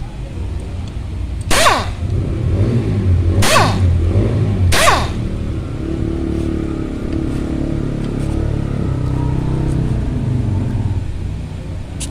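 Motorcycle engine running, with three short, sharp bursts that sweep downward in pitch in the first five seconds.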